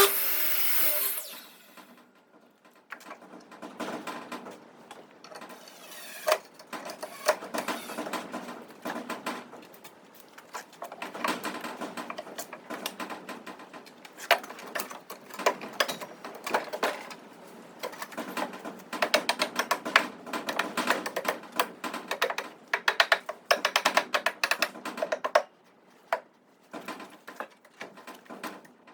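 A power tool runs briefly at the start, then many light, irregular clicks and knocks of shop work that fall off near the end.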